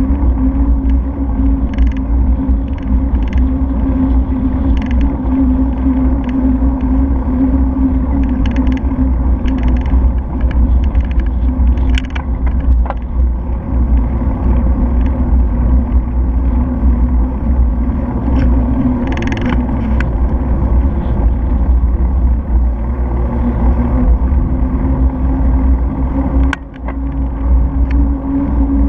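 Steady low wind and road rumble on the microphone of a handlebar-mounted camera on a moving bicycle, with scattered light clicks and rattles.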